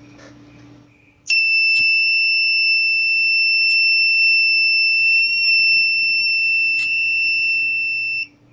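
Buzzer of a breadboard flame-sensor alarm sounding one steady, high-pitched tone, signalling that a lighter flame has been detected. It starts about a second in and cuts off suddenly near the end.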